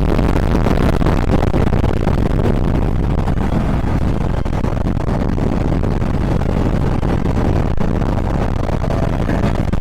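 Steady wind rush and road noise from riding a Bajaj Pulsar RS 200 motorcycle at speed, with no distinct engine note standing out.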